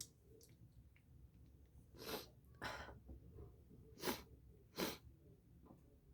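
A person's short, forceful breaths through the nose, four of them in two pairs, while a cotton swab tickles the inside of the nose: near-sneezes that do not become a full sneeze.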